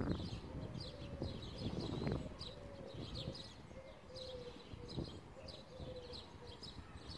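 Birds calling: small birds chirping in quick high repeated notes, over a low repeated cooing from a pigeon. Under them a low rumble with a few soft knocks.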